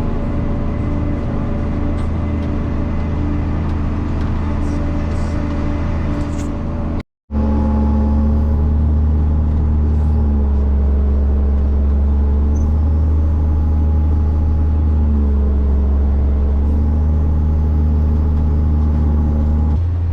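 Tractor engine running steadily under load while pulling grain wagons, a continuous low drone. The sound cuts out for a moment about seven seconds in, then resumes with a heavier low rumble.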